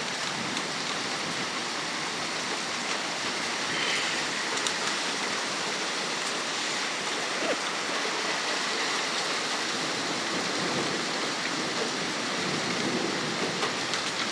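Heavy rain pouring down in a thunderstorm, a steady hiss with scattered drip ticks.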